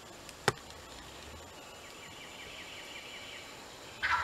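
A sharp click about half a second in, then a faint, rapid high trill, and near the end a wild turkey gobbler breaks into a loud gobble that falls in pitch.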